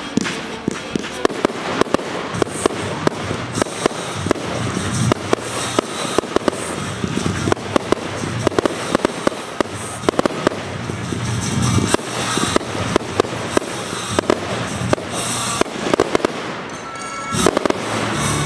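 Fireworks display: a dense, continuous run of shell bangs and crackling bursts, several a second.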